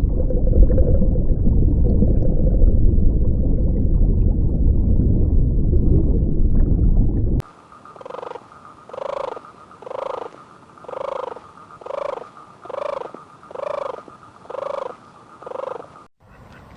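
A cat purring loudly close to the microphone, a dense low rumble that cuts off about seven seconds in. Then an animal calls about nine times, one short pitched call roughly every second.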